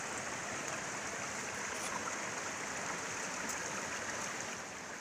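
River water flowing over and around rocks, a steady rushing noise.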